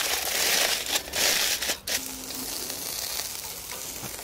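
Aluminium foil crinkling and crumpling as it is folded by hand around an apple half, for about two seconds. It then gives way to a quieter, steady sizzle of chicken fillets grilling over charcoal.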